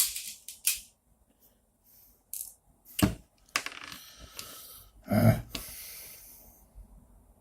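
Acrylic printer-frame plates clicking, knocking and scraping as they are handled and pushed together, with about six sharp knocks and a stretch of rubbing near the middle.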